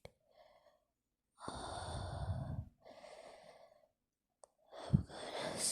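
A woman breathing heavily during a sneezing fit: two long, noisy breaths, then a sharp catch of breath near the end.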